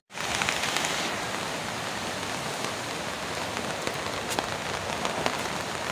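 Steady rain falling, with scattered drops clicking on a nearby surface.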